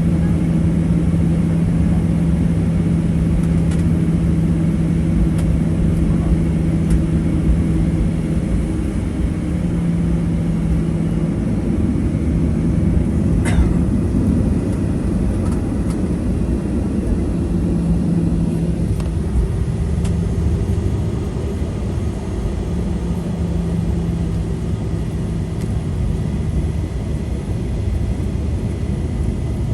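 Cabin noise of a Boeing 737-800 taxiing, with the steady low rumble of its CFM56-7B engines and a low hum that drops in and out. A single sharp click sounds about halfway through.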